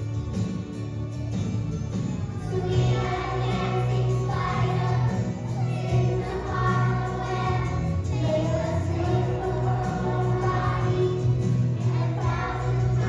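Music with voices singing over a steady low bass note; the singing comes in strongly a couple of seconds in.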